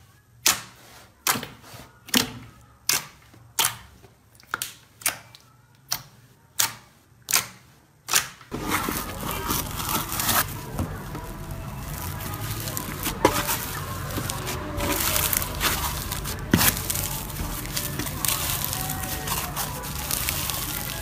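Slime being handled: about ten sharp pops come one after another, roughly every three-quarters of a second. Then it changes to dense, continuous crackling, with a couple of louder snaps.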